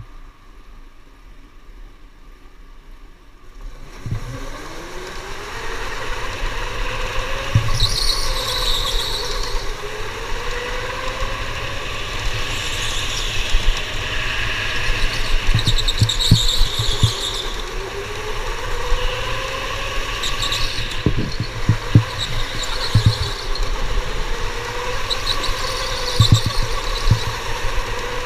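Electric go-kart heard from on board: the motor's whine rises in pitch as the kart pulls away about four seconds in, then rises and falls with speed round the track. Tyres squeal in the corners, several times, with occasional short thumps.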